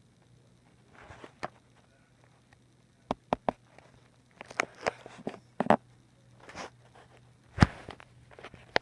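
Scattered sharp clicks and knocks with short rustling noises over a faint steady low hum; the loudest is a single knock near the end.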